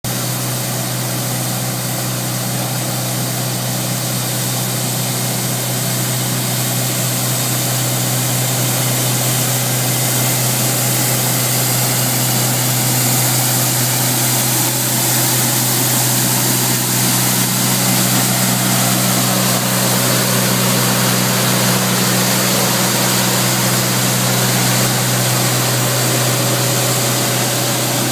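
Elgin Crosswind regenerative-air street sweeper at work: its engine and blower run with a steady low hum under a broad hiss, with the gutter broom sweeping the pavement. The sound grows a little louder about a third of the way in as the sweeper comes closer.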